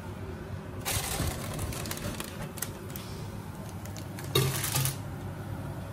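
Metal baking tray pulled out of an electric oven over its wire rack, clattering and scraping: a short clatter about a second in, a few clicks, then the loudest rattle a little past four seconds, over a low steady hum.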